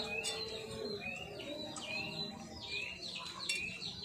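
Small birds chirping: short high chirps, some sliding down and some sliding up, repeating about two or three times a second.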